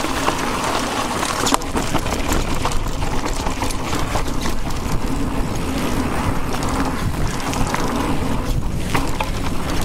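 Wind buffeting the microphone over the rumble of an e-mountain bike riding a trail, with frequent short clicks and rattles from the bike going over rough ground.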